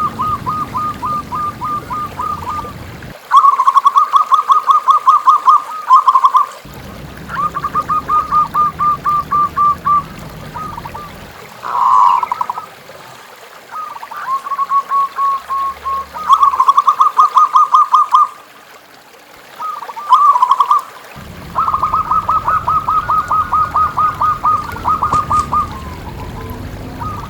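Zebra dove (perkutut) calling in repeated rapid trilled phrases, each a quick run of about ten notes a second lasting two to three seconds, with short gaps between. A trickling stream runs underneath at times.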